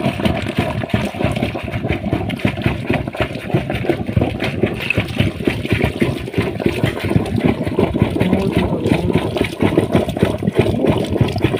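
Electric demolition hammer chipping into a concrete floor to dig down to a leaking pipe: a loud, steady, rapid hammering.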